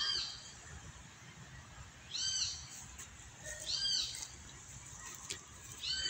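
An animal's high call: a short note rising and falling in pitch, repeated four times about two seconds apart.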